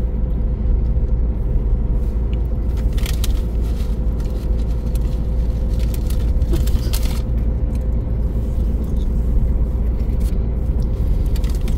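Steady low rumble of a car driving, heard from inside the cabin: engine and road noise with a constant hum. A couple of brief scraping or rattling noises come about three and seven seconds in.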